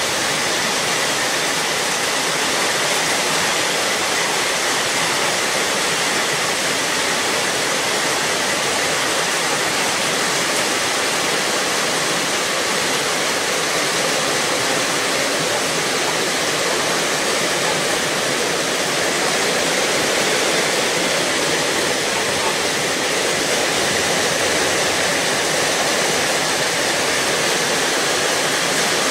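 Heavy rain pouring steadily, an even unbroken hiss.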